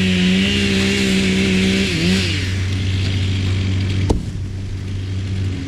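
Chainsaw running at high speed, its pitch dropping away about two seconds in as it comes off the throttle. A heavier engine drones steadily under it, and there is a sharp click about four seconds in.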